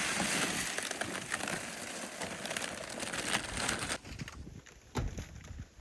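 Dense crunching and crackling of footsteps on icy, frozen ground, which stops abruptly about four seconds in; a single thud follows near the end.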